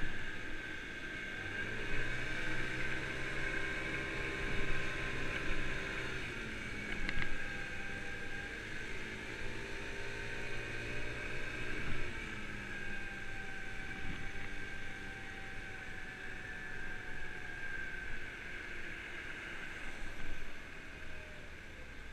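Engine of a 50cc Kymco Agility scooter pulling away twice, its note rising with speed and then easing off each time. A steady high whine and road and wind noise run underneath.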